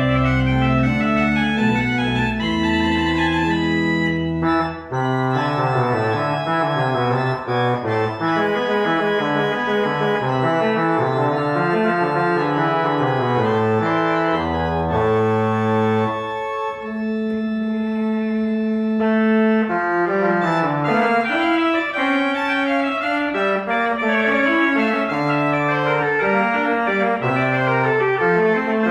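Buzard pipe organ playing a piece that contrasts the principal stops (the 'big whistles') with a loud reed. Sustained chords and moving lines run over low bass notes, with a long held note about two-thirds of the way through.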